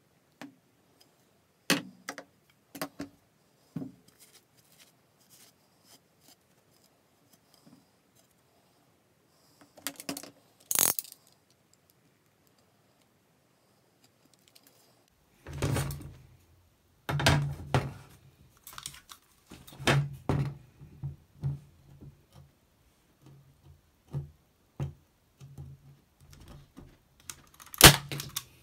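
Scattered clicks and knocks as a tennis racket's plastic butt cap and tools are handled, followed by a busier run of low thuds and knocks as a hand staple gun is pressed against the butt cap. Near the end comes a single sharp snap, the loudest sound, as the staple gun fires.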